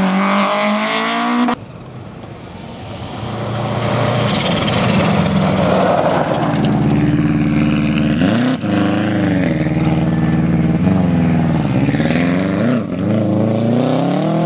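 Rally car engine at high revs that breaks off suddenly about a second and a half in. A rally car then approaches at full throttle, its engine note dropping and climbing again with each gear change.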